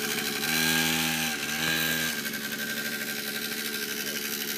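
Small engine of a child's mini dirt bike being ridden, revved up twice in quick succession, then dropping back to a lower, steady run about two seconds in.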